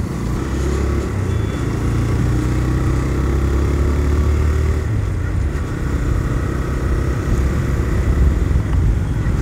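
TVS Raider 125's single-cylinder engine running as the motorcycle rides along at road speed, under a steady low rumble; the engine note shifts about halfway through.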